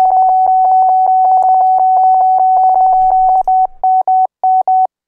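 Morse code practice tones from the G4FON Koch Method CW Trainer: a single steady beep pitched at 750 Hz, keyed into the letters K and M at 20 words per minute. The dots and dashes come in a rapid string, with longer gaps between characters near the end.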